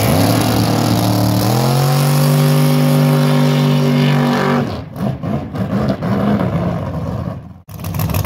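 Drag race car engine revving up in two steps and holding a steady high rev for about three seconds, then cutting off abruptly about four and a half seconds in. Broken, uneven noise with sharp dropouts follows.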